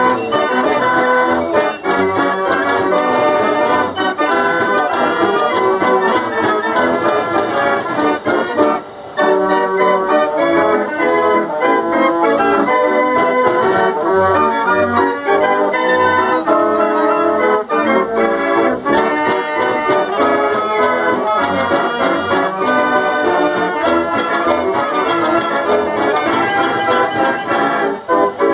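A 98-key Chiappa fairground organ playing a tune on its pipes, with a steady beat of drum strokes. The music breaks off for a moment about nine seconds in, then carries on.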